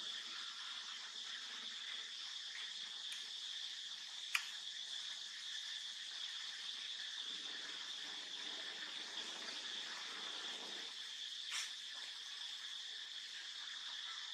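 Steady insect chorus, a constant high-pitched drone of crickets or cicadas. Two sharp clicks cut through it, one about four seconds in and another several seconds later.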